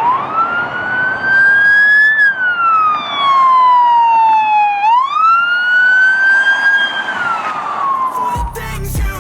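Emergency-vehicle siren wailing in two slow rise-and-fall cycles, each rise taking about two seconds and each fall about two and a half; music comes back in near the end.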